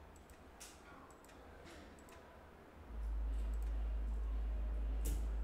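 A few faint computer mouse clicks, then about three seconds in a steady low hum starts and holds.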